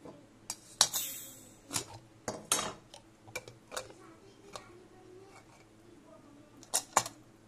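Metal clinks, clanks and scrapes of a pressure cooker's aluminium lid being twisted loose and lifted off the pot. The clinks come in an irregular string, with a short scraping hiss about a second in and two loud clanks near the end.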